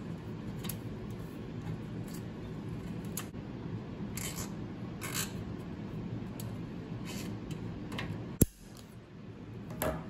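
PC power-supply cables being handled and bundled behind a motherboard tray: a series of short scratchy plastic sounds as cables and zip ties are worked, over a steady low hum, with one sharp click a little past eight seconds.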